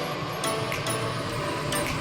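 Background music with sustained notes and a regular percussive beat.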